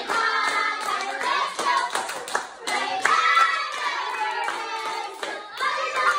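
Children clapping hands along with a group singing together.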